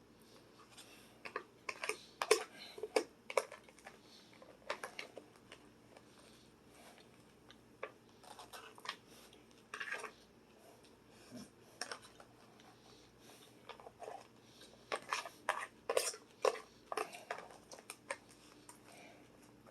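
Fork clicking and scraping against a plastic takeout salad container in irregular bunches, as salad is picked up and eaten.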